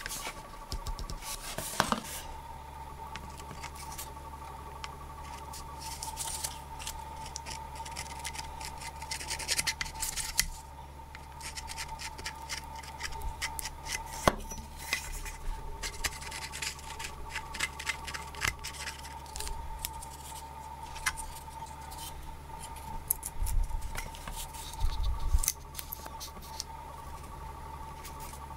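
Small handling sounds of a hand-saw blade being glued into its wooden handle: scratching and rubbing as two-part epoxy is spread on the steel blade, and light clicks and taps as the handle is fitted and a pin pushed through it. A faint steady hum runs underneath, with one sharp click about halfway through and a dull thump near the end.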